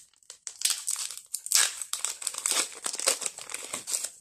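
Foil wrapper of a Pokémon TCG booster pack crinkling as it is torn open and handled: irregular, dense rustling that starts about half a second in.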